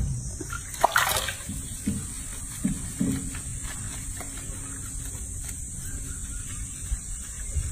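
Water sloshing and splashing in a washbasin as hands scrub a young monkey, with the sharpest splash about a second in and a few softer sloshes after it, over a steady high hiss.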